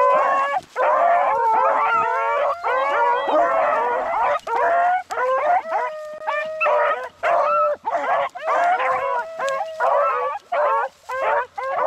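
A pack of rabbit hounds baying together while running a rabbit on its track: several dogs' voices overlap, with long drawn-out howls among shorter barks, nearly without pause.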